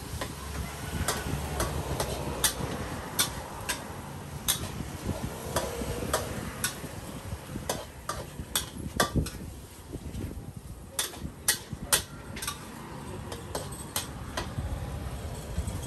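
Metal spatula clanking and scraping against a wok as rice is stir-fried, with sharp irregular strikes a few times a second over a steady low rumble.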